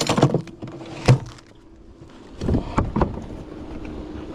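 Several knocks and clunks on a fishing boat: a cluster at the start, a sharp one about a second in, and more between two and three seconds in, over a faint steady hum.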